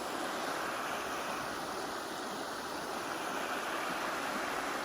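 Creek water running steadily over rocks.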